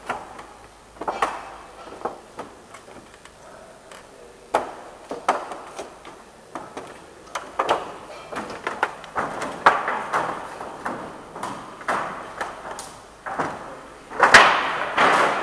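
A run of irregular knocks, scuffs and rustles, unevenly spaced, with a louder cluster near the end.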